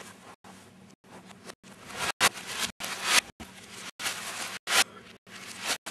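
Sound played in reverse: a string of short hissing noises, several swelling and then cutting off sharply, split by brief dropouts, over a faint steady hum.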